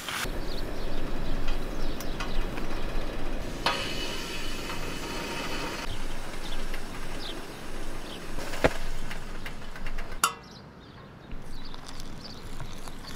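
Knocks, clicks and clatter of objects being handled, busiest a few seconds in, with a sharp knock near the end and a low hum under most of it.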